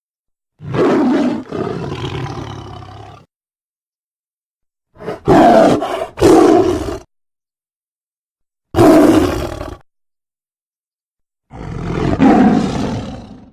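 Tiger roaring: a string of separate loud roars, each one to two and a half seconds long, with silences between them; two come back to back in the middle.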